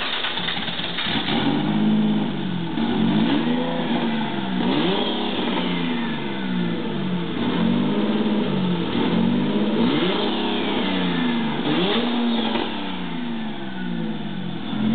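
Turbocharged Nissan VQ35DE 3.5-litre V6 running on the shop floor just after being fired up, its engine speed rising and falling about once a second.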